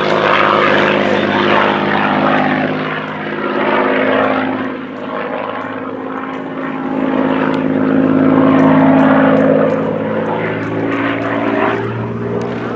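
Supermarine Spitfire in a flying display, its V12 piston engine droning steadily as it passes, the sound swelling and fading, loudest about two-thirds of the way through.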